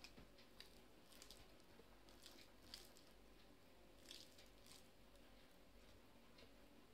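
Faint, soft squishes and light ticks of fingers kneading cooked rice on a steel plate, mixing it by hand.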